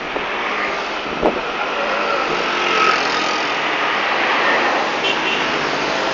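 Steady road traffic noise from passing vehicles, swelling a little about halfway through as one goes by.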